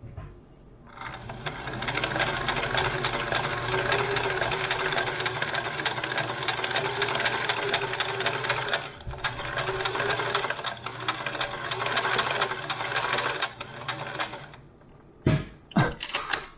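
Sewing machine stitching at speed in one long run, with a brief slackening about two-thirds of the way through, then stopping; a few separate clicks follow near the end.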